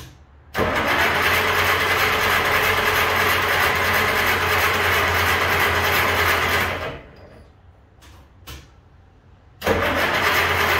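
An old car engine being started: a loud run of about six seconds that stops, a quiet pause with a couple of clicks, then the engine sound again near the end.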